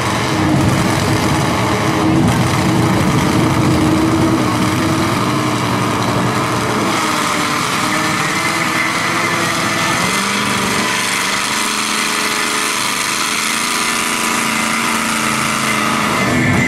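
Big mud truck's engine running under load as the truck drives through a mud pit, its pitch dropping to a lower, steadier note about ten seconds in.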